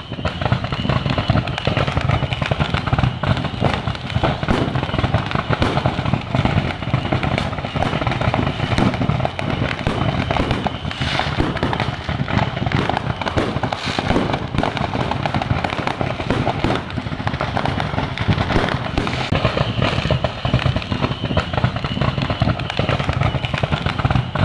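Fireworks and firecrackers going off in a dense, continuous crackle of rapid pops and bangs as fire burns through a fireworks workshop's stock. The sound is like firecrackers.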